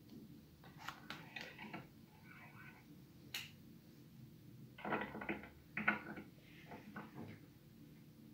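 Scattered small clicks, taps and rustles of hands handling statue parts and packing. There is a sharp click about three and a half seconds in, and louder clusters of taps around five and six seconds in.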